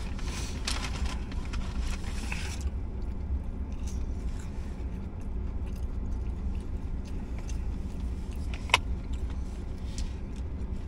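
Low steady rumble inside a parked car, with a paper food bag rustling in the first couple of seconds, quiet chewing and small clicks, and one sharp click about nine seconds in.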